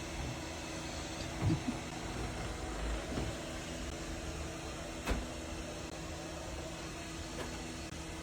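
MAMNV BR151 robot vacuum and mop running with a steady motor hum, with a short thump about a second and a half in and a sharp knock about five seconds in.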